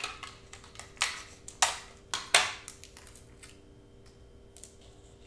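Clear adhesive tape being pulled off a Scotch tape dispenser and torn off, four quick rips between about one and two and a half seconds in.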